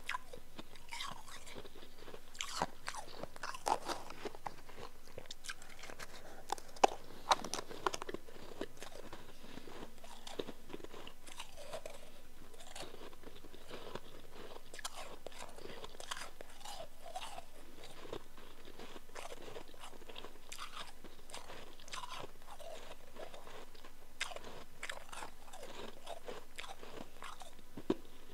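Close-up crunching and chewing of powdery chunk ice in the mouth: a dense run of sharp cracks in the first several seconds, the loudest about seven seconds in, then lighter, sparser crunching.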